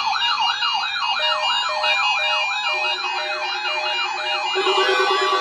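Several NOAA weather radio receivers sounding their electronic siren alarms at once, set off by the weekly warning alarm test. One alarm warbles rapidly up and down about two and a half times a second. A lower steady alarm tone joins partway through and turns into a fast pulsing tone near the end.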